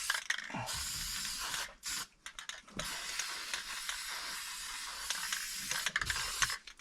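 Aerosol can of rust paint spraying in long hissing bursts, pausing briefly about two seconds in and again near the end.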